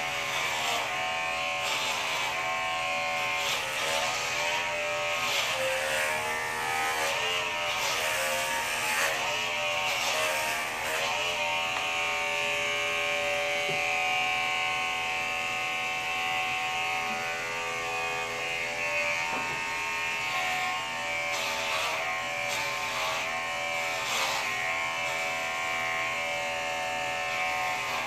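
Corded electric hair clippers buzzing steadily as they are run over a man's scalp. The pitch dips and wavers through the first dozen seconds and again about twenty seconds in, as the blades work through hair.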